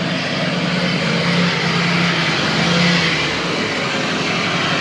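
A vehicle engine running steadily under a continuous rushing hiss. The engine's low hum drops away about three and a half seconds in.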